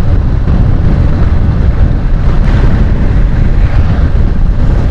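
Steady wind buffeting the microphone over the rumble of a moving road vehicle.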